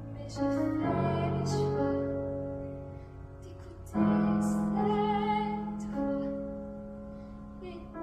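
A woman singing a slow ballad solo with piano accompaniment, two phrases with long held notes and vibrato, the second beginning about four seconds in.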